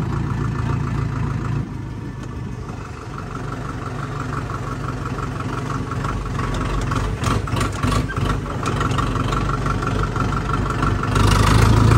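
Vehicle engine running steadily, dropping a little in level about two seconds in and getting louder again near the end.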